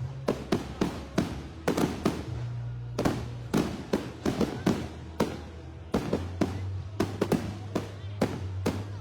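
Aerial fireworks bursting in quick succession, about three sharp bangs a second, each trailing a short echo. Music plays underneath, its low notes steady between the bangs.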